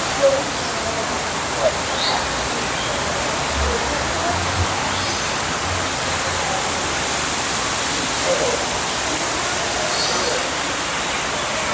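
Steady rushing water, like a waterfall, with a few faint short chirps over it.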